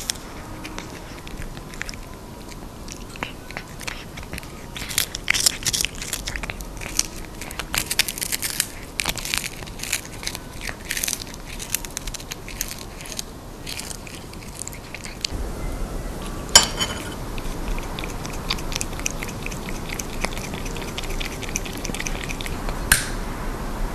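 Exotic Shorthair cat chewing dried fish: quick crisp crunches and bites, thinning out later, with a single sharp click about two-thirds of the way through.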